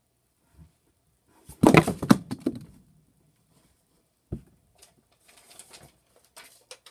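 A quick cluster of loud thumps and knocks, then a single sharp thump a few seconds later, followed by soft rustling and shuffling, as a person moves about and handles things.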